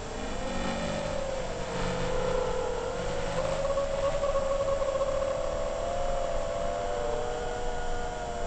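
FPV freestyle quadcopter's brushless motors and propellers whining, the pitch drifting up and down with the throttle as it flies.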